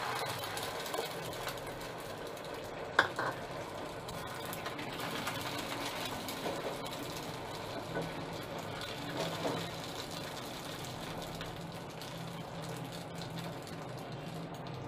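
Egg batter sizzling on a hot iron tawa, starting as it is poured onto the pan and carrying on steadily, with one sharp click about three seconds in.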